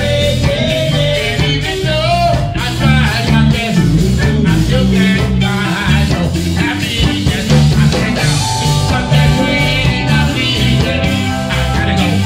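Live reggae band playing, with electric guitars, keyboard, bass and drums under a man singing lead. From about eight seconds in, steady held notes come to the fore.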